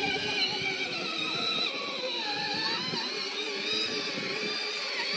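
Dodge Power Wheels ride-on truck's electric drive motors and plastic gearboxes whining steadily as it drives across grass, the pitch sagging briefly about halfway through.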